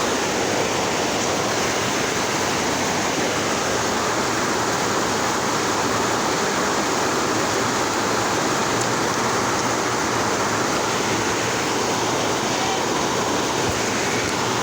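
Heavy rain falling, a steady loud hiss that drowns out a voice.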